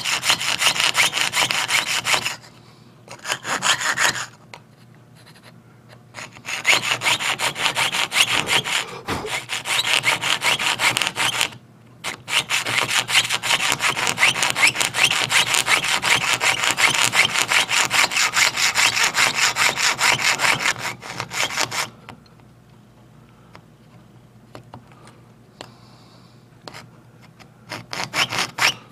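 Jeweler's saw with a very fine blade piercing out a metal clock-wheel blank, rapid back-and-forth rasping strokes. It comes in runs with short pauses, and stops about 22 seconds in, leaving only a few faint clicks and a brief burst of strokes near the end.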